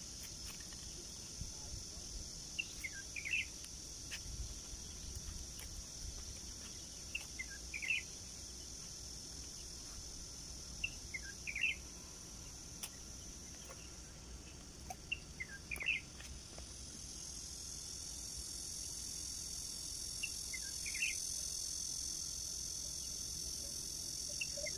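Steady high-pitched drone of insects, growing louder in the second half, with a bird repeating a short call of two or three quick notes every four or five seconds.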